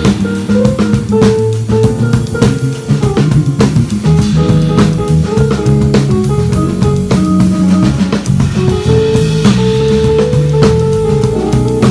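A live band playing funky jazz: a drum kit with busy, steady hits under low bass notes and held higher melody notes.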